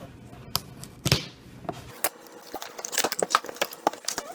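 Plastic packaging being pulled off an item, crinkling and crackling, with a louder rustle about a second in and a run of sharp crackles and clicks near the end.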